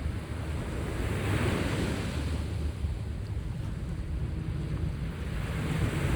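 Sea waves washing onto the shore, one surge swelling about a second and a half in and another near the end, with wind buffeting the microphone.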